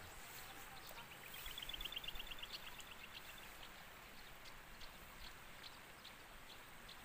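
A bird's rapid trill of short high notes, starting about a second in and lasting about two seconds, then a few scattered faint high notes over quiet outdoor background.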